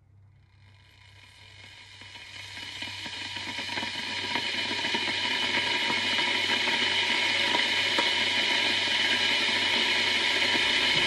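Electric kettle heating water: a hissing sizzle with small crackles that swells over the first few seconds and then holds steady as the water nears the boil.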